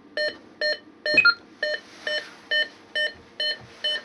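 Optima XM burglar alarm control panel beeping steadily, about two short beeps a second, after being set with its code. This is the exit-delay countdown. One higher single key beep cuts in about a second in.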